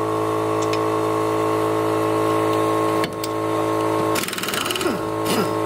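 Compressed-air tool setup (pneumatic impact wrench on its air hose, fed by a compressor) running with a steady, even mechanical drone, dipping briefly about three seconds in.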